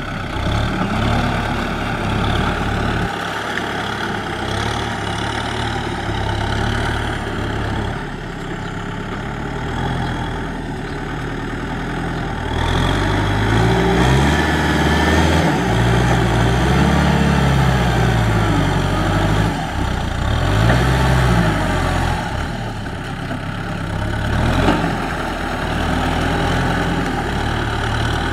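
Kubota M6040SU tractor's four-cylinder diesel engine working under load as it pushes mud with its front blade. Its pitch rises and falls repeatedly, and it gets louder about halfway through.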